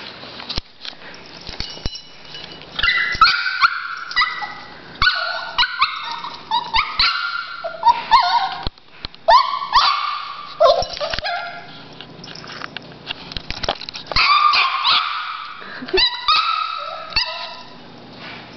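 Yorkshire terrier puppy yapping and whining: short, high-pitched barks and whines, repeated in two long bouts with a pause of a few seconds between them.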